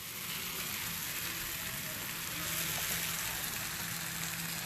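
T-bone steaks sizzling on a hot flat griddle, a steady hiss.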